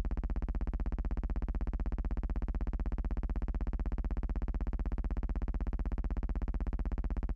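A steady, low buzzing hum with a fast, even pulse, holding the same pitch and level throughout.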